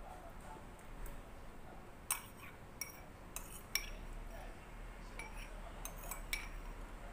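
Metal spoon clinking against a dish while eating: about seven short, ringing clinks, a cluster two to four seconds in and another near the end.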